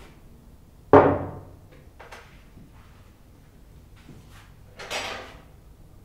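A ceramic bowl set down hard on a table, one sharp knock that rings out briefly about a second in. A softer clatter of crockery follows about four seconds later.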